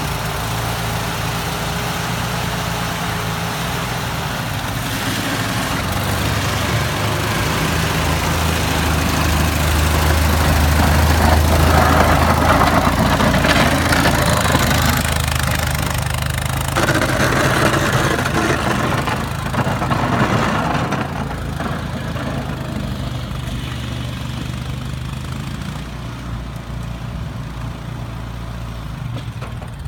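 1950 Ford 8N tractor's four-cylinder flathead engine running steadily while plowing snow with a rear blade, growing louder as the tractor passes close about midway and fading slightly near the end.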